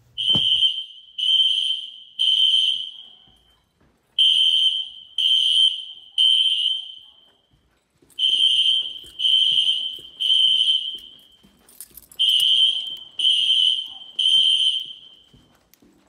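System Sensor SpectrAlert fire alarm horn sounding the temporal code 3 evacuation pattern: three loud, high-pitched beeps, then a pause, repeating about every four seconds.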